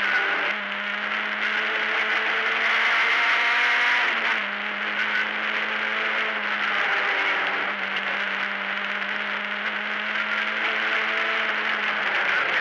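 Lada 1600 rally car's four-cylinder engine running hard under load, heard from inside the cabin over tyre and wind noise. The engine note dips briefly about half a second in, again around four seconds and near eight seconds, then holds steady again.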